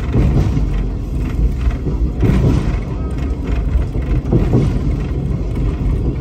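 Running noise of a vintage passenger carriage on the move behind a steam locomotive: a loud, steady rumble of wheels on track with louder surges about once a second.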